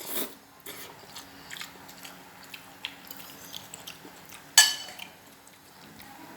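Close-miked eating of instant noodles: chewing with small, irregular wet mouth clicks, and one louder sharp click about four and a half seconds in.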